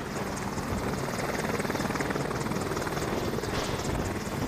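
Boeing AH-64 Apache helicopter flying low past, its four-blade main rotor beating in a rapid, steady chop.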